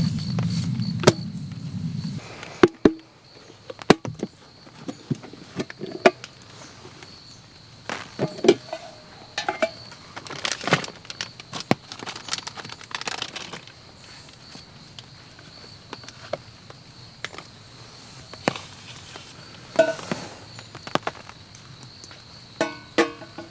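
A steady, faint, high insect trill runs under scattered small clicks, knocks and crinkles of camp gear being handled. A low hum cuts off about two seconds in.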